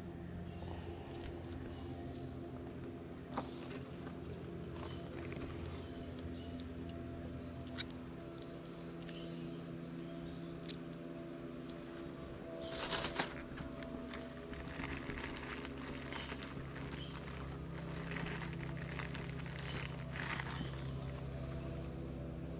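A steady insect chorus: a continuous high-pitched buzz held at one pitch throughout, over a low steady hum. A brief knock or rattle sounds just past the middle.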